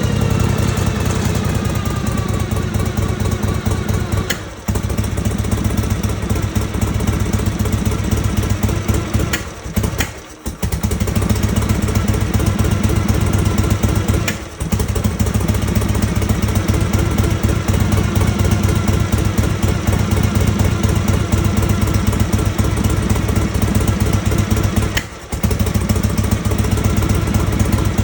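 Harley-Davidson Panhead V-twin engine with a Mikuni carburettor running at idle, its revs settling down in the first couple of seconds. Four times it stumbles and briefly drops out before picking up again: the carburettor cough.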